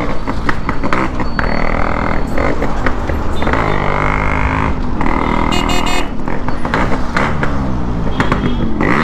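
Yamaha RX100's two-stroke single-cylinder engine running on the road, revving up and easing off several times in traffic with a crackly, popping exhaust note.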